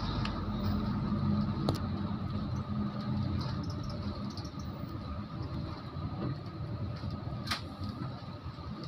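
Steady engine and tyre noise of a moving car heard from inside, a low hum over a road hiss, with two brief clicks about two seconds in and near the end.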